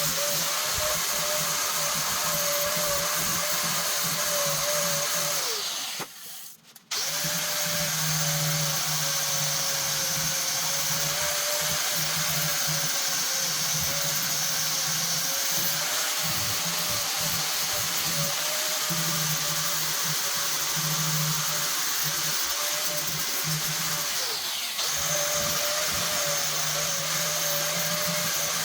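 Handheld electric power tool, most like an angle grinder, running at speed. About five seconds in it is switched off, its pitch winding down to a stop, and it restarts a second later. Near the end it winds down again briefly and picks back up.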